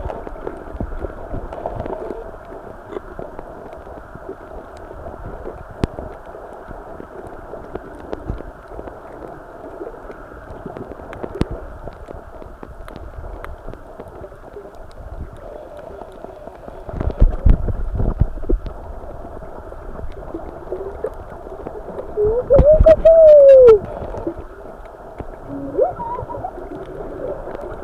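Muffled underwater sound picked up by a submerged camera: a steady dull water rush, with a few heavy low thuds around the middle and again about three-quarters through. Near the thuds come a couple of short tones that rise and fall.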